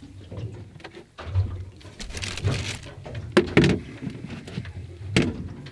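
Knocks and thumps aboard a small fishing boat, two sharp knocks standing out at about three and a half and five seconds in, over a low rumble of wind and water.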